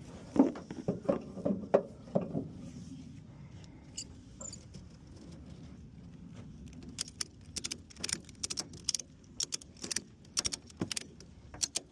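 Handling noise: a few knocks and thuds, then a long run of sharp clicks and rattles over the last five seconds.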